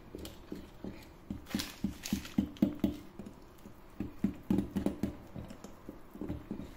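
Wire hand whisk beating thick cake batter in a glass bowl, working the flour into it: a quick, uneven run of soft knocks and slaps, three to five a second, with a short lull midway.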